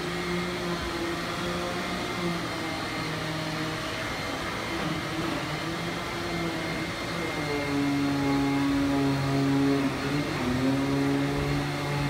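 Hyla water-filter canister vacuum cleaner running steadily as its floor nozzle is drawn over foam nap mats. About seven and a half seconds in the motor's pitch drops and it gets a little louder.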